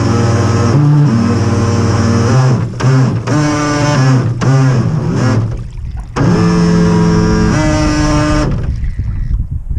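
Loud rock-style music: a riff of held notes that jump and slide in pitch, stopping abruptly about 8.5 seconds in and leaving a quieter, noisier sound.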